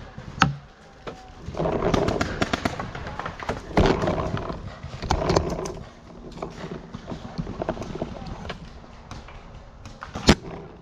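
Two sharp paintball marker shots, one about half a second in and a louder one near the end. In between come several rough, scuffling stretches of movement.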